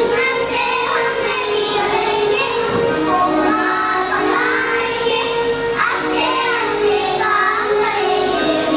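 Young children singing a song to instrumental accompaniment, with held instrument notes under the voices.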